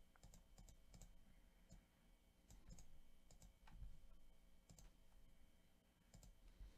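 Faint computer mouse and keyboard clicks, about a dozen short, irregularly spaced clicks over quiet room tone.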